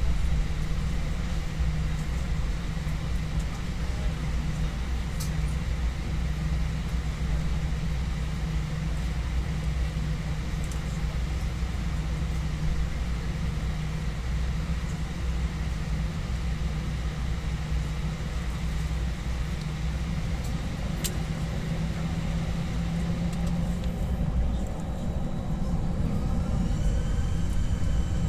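Cabin noise of an Airbus A320 rolling on the ground: a steady low rumble of the jet engines at idle. About three seconds before the end the engines begin to spool up with a rising whine, the start of takeoff thrust.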